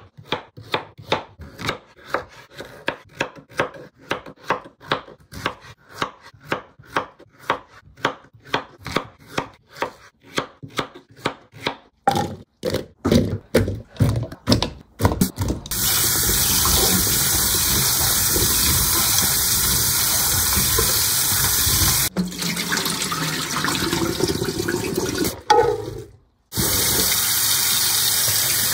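A knife chops peeled potatoes on a wooden cutting board in steady strokes, about three a second. Near the halfway point come a few louder clatters as the pieces are tipped into a bowl. Then a kitchen tap runs in a steady rush into a pot of potato chunks in the sink, breaking off twice.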